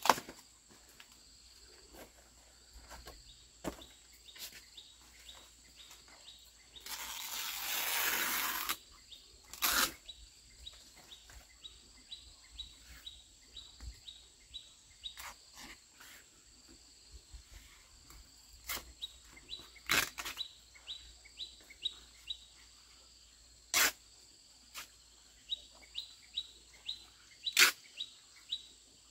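Fresh banana leaves being handled, shaken, torn and folded: crisp crackles and snaps throughout, with a longer rustle about seven seconds in. Small birds chirp repeatedly in the background over a steady high hum.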